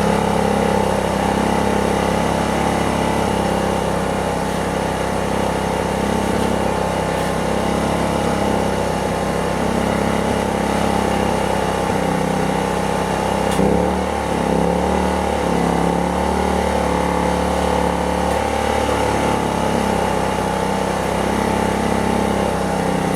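Predator 2500 inverter generator's engine running steadily under the load of an air compressor it cannot start: the compressor's induction motor never gets going. About 14 s in the engine note shifts for a few seconds, then settles back.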